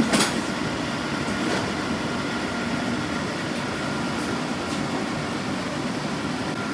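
Casters of an engine stand carrying a VW engine rolling across the shop floor: a steady rolling rumble, after a sharp knock right at the start.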